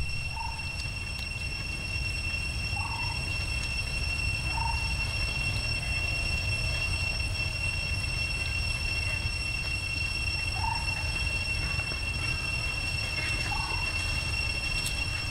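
A steady high-pitched whine of several pure tones, over a low rumble, with five short rising chirps scattered through.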